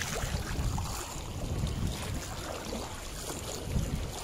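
River water sloshing around someone wading through a shallow river, with wind buffeting the microphone in uneven low gusts.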